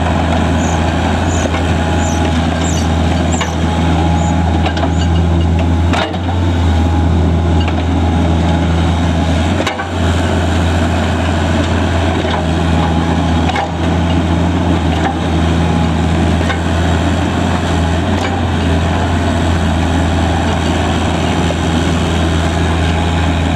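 Bobcat 331G mini excavator's diesel engine running steadily under load as the machine travels on its rubber tracks, with a few short knocks about six, ten and fourteen seconds in.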